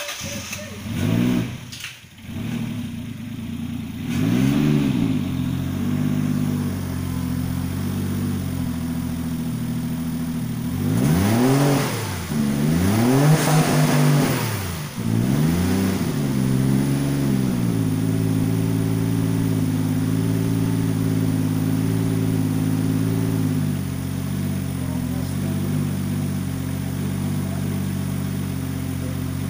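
Toyota 1JZ-GTE turbocharged 2.5-litre straight-six, swapped into a Toyota Kijang, running and blipped up and down in several short revs. About 17 seconds in it settles to a steady idle.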